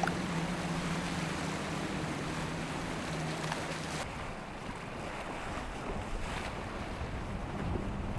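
Outboard engines of center-console boats running at speed, a steady low drone over rushing water and wave noise, with wind buffeting the microphone. About four seconds in, the sound cuts to a second boat, a Yellowfin with twin Mercury outboards, and the engine note fades under the water and wind hiss before coming back near the end.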